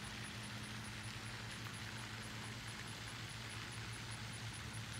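Steady outdoor ambience: a low hum under an even hiss, with a faint high-pitched ticking repeating about four times a second.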